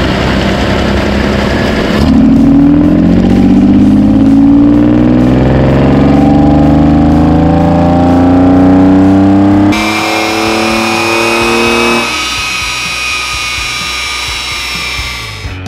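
Jaguar engine with open intake trumpets running a full-throttle power run on a rolling-road dyno. The revs climb steadily for several seconds and the sound changes abruptly a little past halfway. The engine drops off about three-quarters of the way in and fades near the end.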